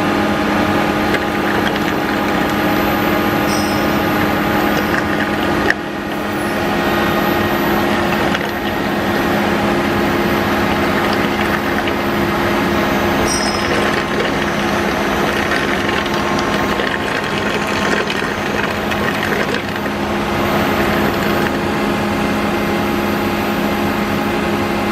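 Electric-motor-driven impeller pump of a coolant-emulsion cleaning unit running steadily with an even hum. A single sharp click comes about six seconds in.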